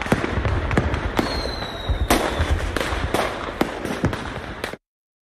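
Fireworks going off: a rapid run of bangs and crackle over a low rumble, with a thin falling whistle about a second in. It cuts off suddenly near the end.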